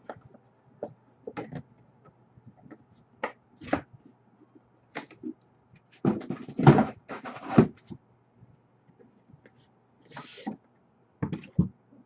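Trading cards and their packaging being handled: scattered light clicks and taps, with a burst of rustling about six seconds in and a shorter one near the end.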